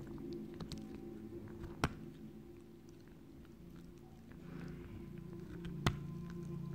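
Maltese puppy gnawing a deer bone, its teeth scraping and clicking on the hard bone, with two sharp clacks about four seconds apart.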